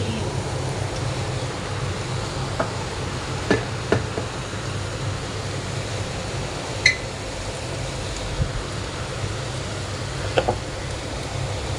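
Dough balls deep-frying in hot oil: a steady sizzle over a low hum, with a few short, sharp knocks scattered through it.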